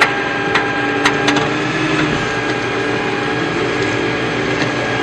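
Small electric gear motor of a toy radio-controlled construction vehicle whining steadily, with a few sharp plastic clicks in the first second and a half.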